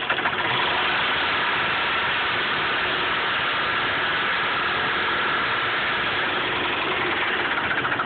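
4.0-litre engine brought up to a higher speed about a third of a second in and held there, running smoothly with the odd tick gone. Near the end it drops back and the rapid ticking heard at idle returns.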